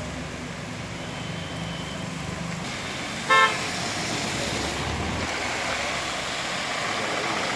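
Traffic on a rain-wet road: a steady hiss of rain and tyres with engines running, and one short vehicle horn toot a little over three seconds in, the loudest sound. The hiss grows toward the end as vehicles pass close.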